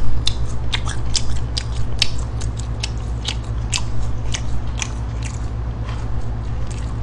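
Close-miked chewing of McDonald's fast food: irregular crisp clicks and crunches from the mouth, a few a second, over a steady low hum.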